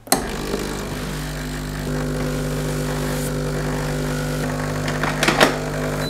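The vibratory pump of a Breville Barista Express Impress espresso machine runs steadily as a shot is pulled, a low buzzing hum that starts abruptly and grows a little fuller about two seconds in.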